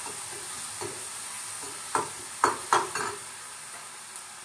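Onion and tomato sizzling in a kadhai over a gas flame, a steady hiss, with a few short sharp knocks about two to three seconds in.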